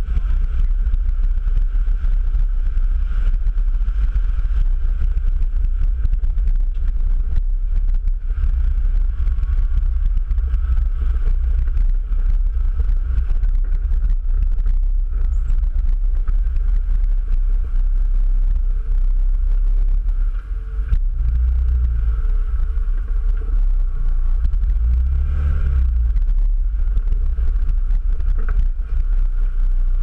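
Four-wheel drive's engine and drivetrain rumbling steadily as it fords a river and drives up onto a dirt track, heard through a camera mounted on the vehicle, with water splashing against it at the start. The rumble swells twice in the second half.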